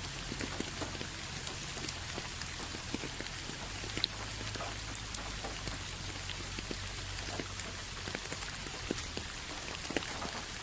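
Steady rainfall with many separate drops pattering on surfaces, over a constant low rumble.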